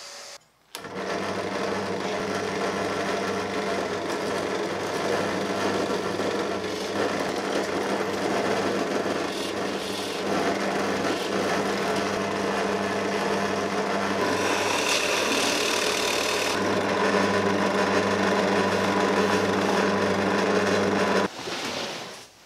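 Benchtop drill press motor running steadily with a hum while holes are drilled in plywood parts, with a brief hissing stretch about two-thirds through. It stops near the end.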